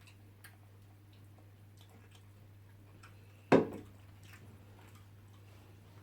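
Eating sounds: faint scattered clicks and mouth smacks of chewing, and one sharp knock about three and a half seconds in, over a steady low hum.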